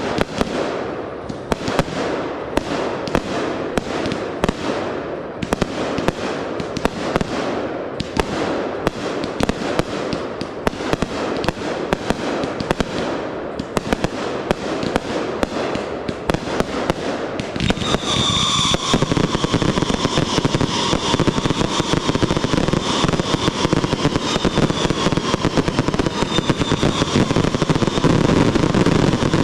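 Consumer fireworks going off in a rapid string of launches and bursts. About eighteen seconds in they thicken into a louder, denser barrage with a steady high whistle running through it.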